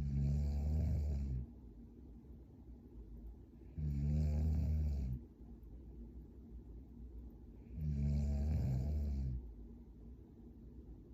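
A young woman snoring in her sleep: three low snores about four seconds apart, each lasting about a second and a half.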